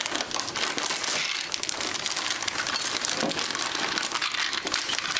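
A clear plastic bag of small hardware being handled and rummaged through: continuous crinkling plastic with small parts clinking inside.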